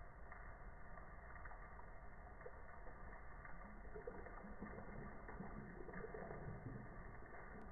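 Coffee poured in a steady stream from a carafe into a mug, the liquid splashing faintly into the cup as it fills.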